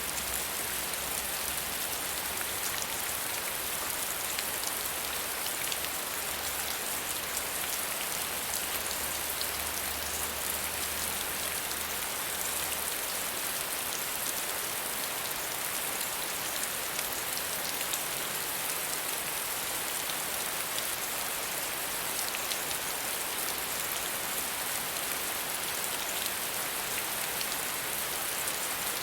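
Soft rain falling steadily, a dense, even patter of drops on a surface.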